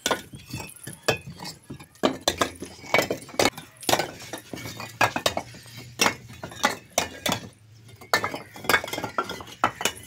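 Fired clay bricks clacking and clinking against one another as they are lifted and shifted by hand off a loose stack, in a quick irregular series of sharp knocks.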